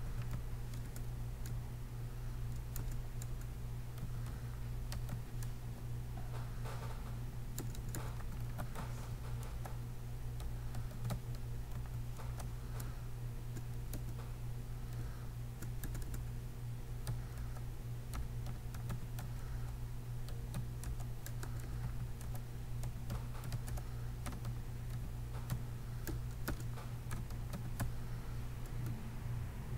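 Computer keyboard being typed on: irregular key clicks in quick runs with short pauses. A steady low hum lies under the typing.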